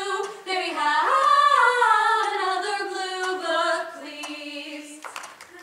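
A few voices singing together on stage with no instruments, holding long notes with a rising swoop about a second in, and trailing off about five seconds in.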